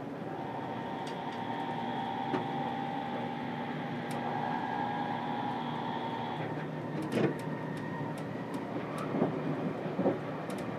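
Interior running noise of a JR Kyushu 787 series electric train, heard inside its green private compartment: a steady rolling rumble with a steady whine that stops about six and a half seconds in, followed by a few sharp knocks.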